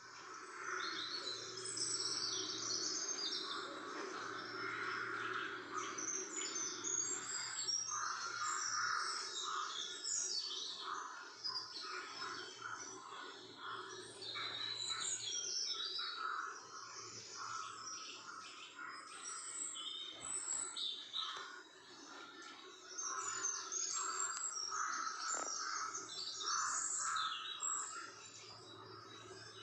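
Many small birds chirping and twittering in a dense, continuous chorus, over a faint steady low hum.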